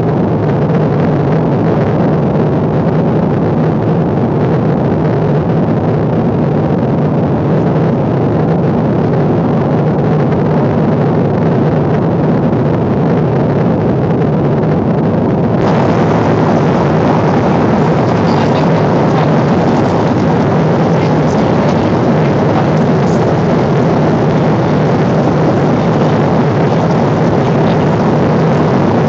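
Steady in-flight cabin noise of a Boeing 777: engine and airflow drone with a low hum under a broad hiss. A little past halfway the hiss suddenly turns brighter and stays that way.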